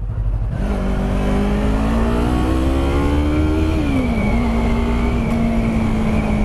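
Yamaha R3's 321 cc parallel-twin engine accelerating hard, its pitch rising steadily for about three seconds. The pitch drops at an upshift about four seconds in, then the engine holds steady under wind noise.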